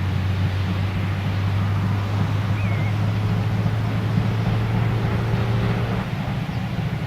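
Steady low rumble with wind buffeting the microphone; no rhythmic steam exhaust beats are heard.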